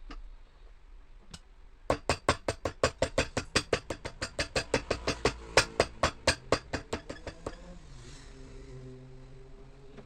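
A quick run of sharp hammer taps, about five or six a second, for about five seconds, as a cobbler's hammer works on a shoe. Then a motor starts humming steadily, its pitch creeping slowly upward.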